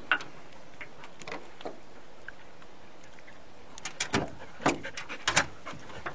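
Irregular knocks and clunks in a small fishing boat, a few scattered at first, then a quick cluster of them about four to five and a half seconds in.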